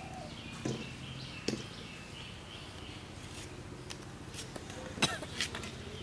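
Green bananas being peeled against a bonti, a curved blade fixed on a wooden base: a few sharp slicing clicks as the peel is cut, two in the first second and a half and a louder pair near the end.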